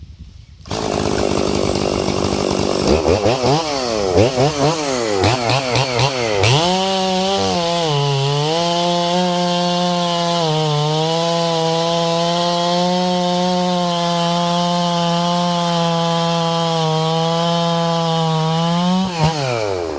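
Two-stroke chainsaw running, revved up and down in quick blips, then held at high revs for about twelve seconds with a few brief dips in pitch. Near the end the throttle is released and the engine winds down.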